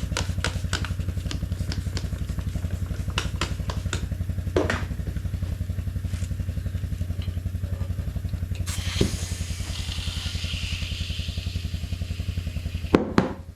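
Air compressor running steadily with a fast chugging pulse while air is pumped into a motorcycle tire, with a hiss of air from about nine seconds in. Near the end, two sharp pops as the lubricated tire bead snaps onto the rim.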